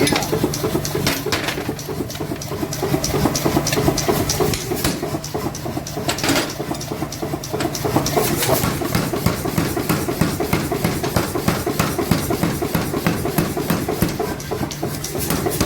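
Machinery running with a steady low hum and a rapid, even clicking rhythm.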